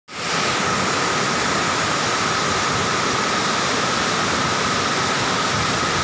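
Waterfall pouring down a rock face into a pool: a steady, loud rush of water, with a thin steady whine above it.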